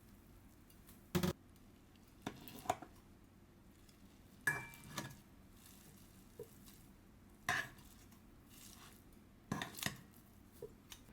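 Kitchen utensils knocking and clinking against dishes and pans in several separate clatters, one with a brief ring.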